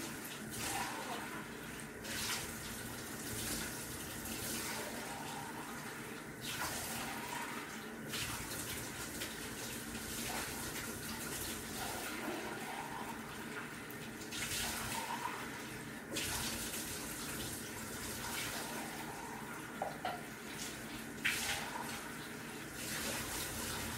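Water running from a bathtub tap and splashing in the tub as a dog is rinsed, the rush swelling and easing every few seconds.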